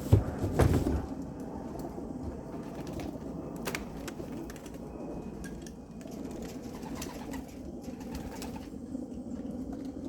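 Homing pigeons cooing steadily in the loft, with a sharp knock and clatter in the first second and a single click a few seconds later.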